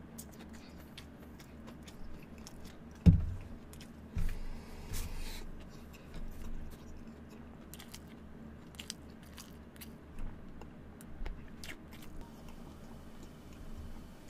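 Chewing and biting into fried chicken close to the microphone, with scattered sharp clicks and a single loud thump about three seconds in.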